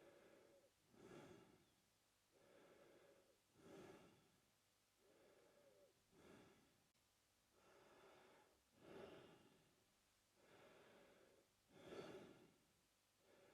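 A man breathing faintly and evenly through his mouth. The breaths come in a steady in-and-out rhythm, about five full breaths, each lasting about a second.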